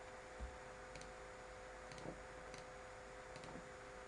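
Faint computer mouse clicks, four single clicks spaced about a second apart, over a steady low electrical hum. A soft low thump about half a second in.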